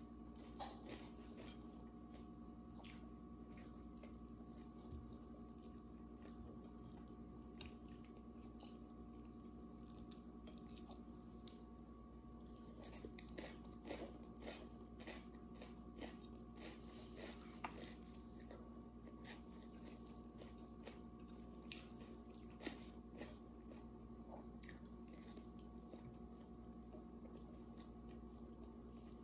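Quiet close-up chewing of someone eating rice and hot dog with her fingers, with many small scattered clicks, busiest around the middle, over a faint steady hum.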